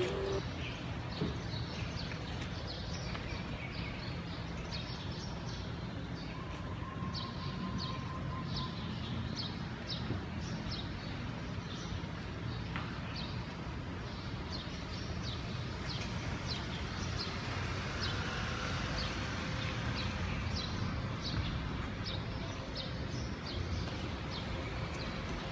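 Outdoor ambience: small birds chirping over and over in short high notes above a steady low background rumble.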